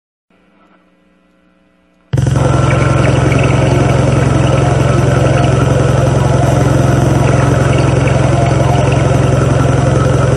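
Harsh noise track from a split cassette: a short silent gap between tracks, then about two seconds in a dense, unchanging wall of distorted noise with a heavy low drone starts abruptly and holds steady.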